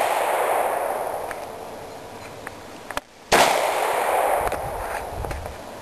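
Hi-Point gun being fired: the long echoing tail of a shot fades away, then a second shot comes a little over three seconds in and rings out slowly.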